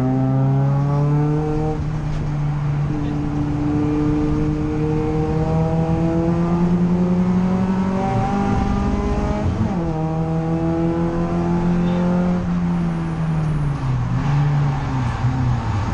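Peugeot 208 Racing Cup car's turbocharged 1.6-litre four-cylinder engine heard from inside the cabin under race acceleration. Its pitch climbs, drops at an upshift about two seconds in, and climbs again for several seconds. From about twelve seconds in it falls as the car slows for a corner.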